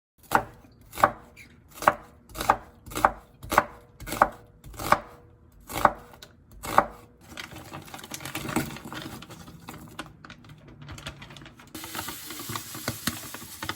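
About eleven sharp knocks at an even pace, roughly one and a half a second, then softer irregular clattering and rustling.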